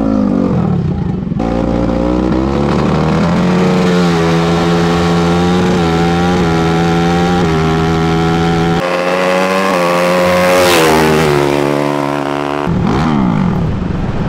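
Racing engines run at high revs for a drag pass. Their pitch holds, then jumps in steps like gear changes, climbs to a peak about eleven seconds in, and falls away near the end.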